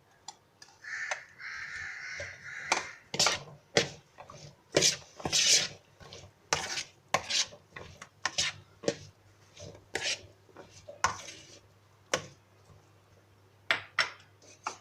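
Spoon and utensils knocking, clinking and scraping against a bowl in an irregular run of short strikes as chopped vegetables are added and mixed into boiled chickpeas, with a longer rasping scrape about a second in.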